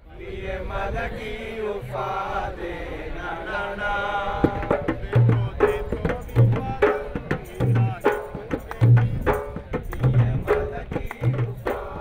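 Background music: a wavering chant-like voice over instruments, joined about four seconds in by a deep beat that comes a little more than once a second.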